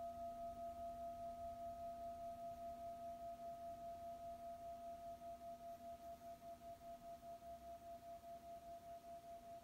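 An 18 cm hand-hammered Jambati Tibetan singing bowl ringing on: a steady hum of several tones, the middle one strongest. It has a wobble of about three pulses a second and slowly fades.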